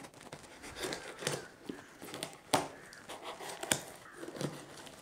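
A courier package being opened by hand: packaging tearing and crinkling, with a few sharp clicks in between.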